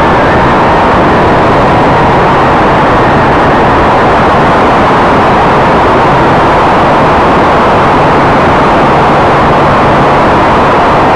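Twin motors and propellers of a radio-controlled model Canadair CL-415 in flight, heard from a camera mounted on the model. They make a loud, steady rushing noise of propeller wash and wind, with a faint high whine most noticeable in the first second.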